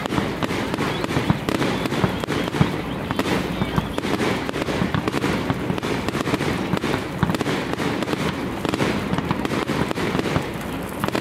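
Aerial fireworks bursting overhead, with a dense, continuous run of crackles and pops.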